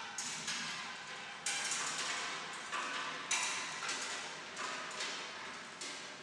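Metal kinetic sculpture working: irregular knocks and clacks from its mechanism, roughly two a second, each ringing briefly.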